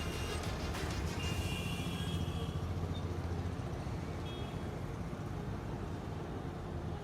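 Road and traffic noise heard from a moving car: a steady low rumble, with a couple of short faint high tones about a second in and again around four seconds.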